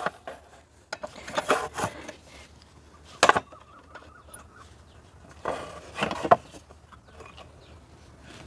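A thin wooden board is slid and set down over an upturned electric hand cutter, with wood rubbing and scraping on wood. There is a sharp knock about three seconds in and another bout of handling around six seconds. The cutter is not running.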